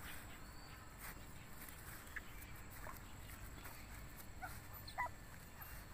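Month-old Bắc Hà puppies giving several faint, brief squeaks and whimpers, the loudest about five seconds in.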